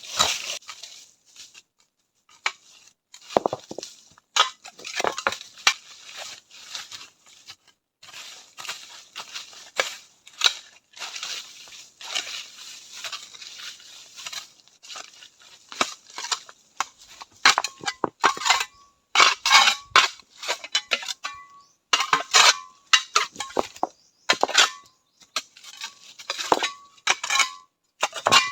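Irregular crunching and scraping, joined in the second half by sharper metallic clinks that each ring briefly.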